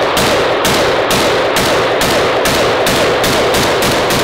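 B&T APC308 .308 rifle firing a rapid string of semi-automatic shots with brass-cased ammunition, about three shots a second and quickening near the end, each report's echo running into the next. The rifle cycles round after round on brass.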